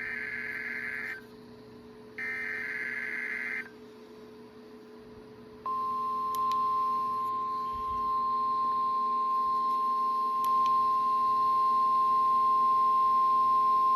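NOAA Weather Radio Required Weekly Test from transmitter WNG698, heard through a radio receiver: two short bursts of SAME digital header data, a harsh buzzing screech, then about six seconds in the steady 1050 Hz weather radio warning alarm tone starts and holds.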